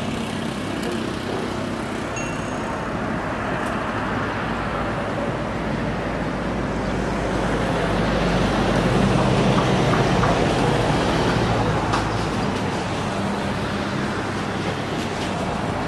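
Twin turbofan engines of a Comac ARJ21-700 jet running at low taxi power as it turns onto the runway. The jet noise is steady, grows louder about halfway through and eases off again.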